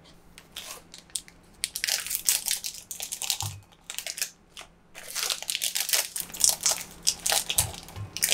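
Foil-lined plastic Choco Pie wrappers torn open and crinkled by hand, in two spells of crackling rustle with a short pause between them. A few low knocks sound in the middle and near the end.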